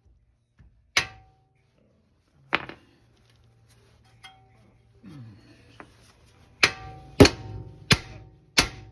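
Hammer blows on steel, each with a short metallic ring: two single strikes, then four quicker ones about two-thirds of a second apart near the end.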